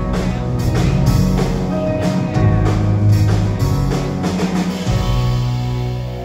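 Live rock band playing the instrumental close of a song: electric guitars, bass, drum kit and keyboard, with drum hits over sustained chords. The band settles into a held chord near the end.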